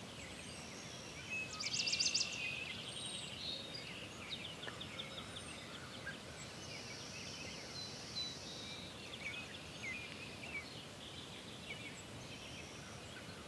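Outdoor birdsong ambience: several small birds chirping and trilling over a faint steady hiss, with a brief rapid trill about a second and a half in that is the loudest moment.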